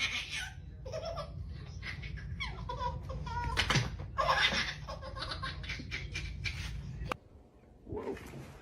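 Laughter in irregular bursts over a steady low hum, which cuts off suddenly about seven seconds in.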